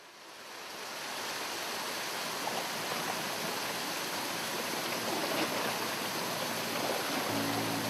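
Water pouring over a rock waterfall into a swimming pool: a steady rush of splashing water that fades in over the first second or so. Low sustained music notes come in near the end.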